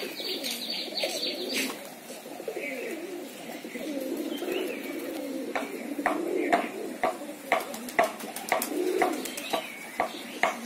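Domestic pigeons cooing: several low, wavering coos overlap throughout. There is a brief flutter of wings at the start, and a string of sharp taps runs through the second half.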